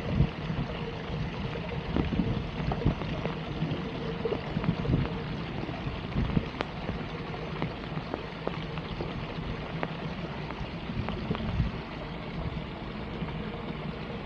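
Steady water noise like rain patter or running floodwater, with scattered small clicks and knocks and low thumps.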